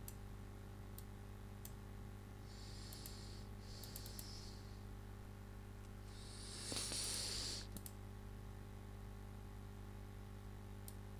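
Faint computer mouse clicks: scattered single clicks, with a quick cluster about four seconds in. Short hissing rustles come a couple of seconds in, and a louder rush of noise about seven seconds in, all over a steady low hum.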